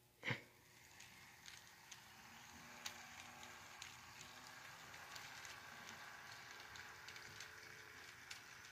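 Faint sound of model trains running on track: a quiet motor whir with light clicks of the wheels, slowly growing louder, after a short click just after the start.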